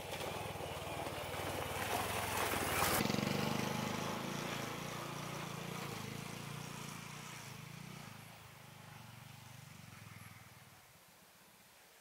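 Honda CT125 Hunter Cub's single-cylinder four-stroke engine running as the motorcycle rides by, loudest about three seconds in, then fading steadily as it rides away.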